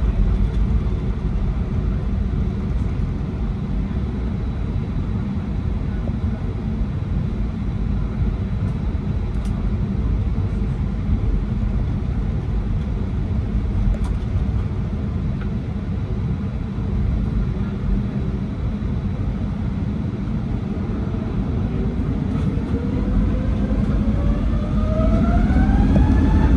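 Airbus A320neo turbofan engines heard from a cabin seat beside the engine: a steady low rumble while taxiing and lining up. About 22 seconds in, a whine rises in pitch and grows louder as the engines spool up for the takeoff roll, then levels off near the end.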